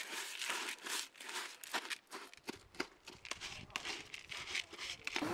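Crinkling, rustling and clicking handling noises as cat food is scooped and stirred by hand in a metal pot. A low background rumble comes in about halfway through.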